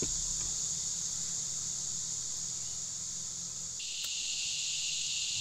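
Steady high-pitched chorus of calling insects; a second, lower-pitched insect chorus joins about four seconds in, with a single faint click just after.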